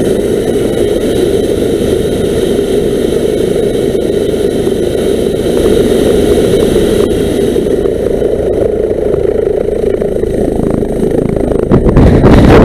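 Twin-engine police helicopter starting up: its turbine engine runs with a steady rush and thin high whine tones that fade out about eight seconds in. The sound grows louder near the end, with a rapid fluttering.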